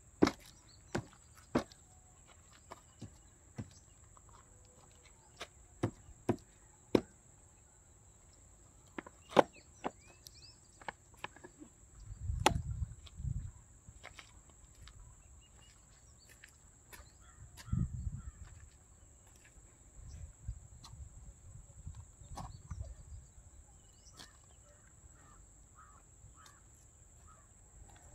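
Quiet outdoor ambience by a pond: a steady high-pitched insect drone, scattered sharp clicks and taps through the first half, and a few short low rumbles near the middle and in the second half.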